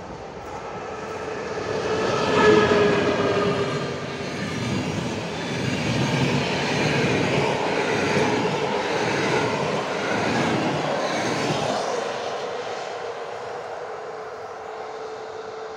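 Electric-hauled passenger train passing close by, its wheels clattering over the rails. It builds to its loudest about two and a half seconds in, stays loud for about ten seconds as the coaches go by, then fades as the train draws away.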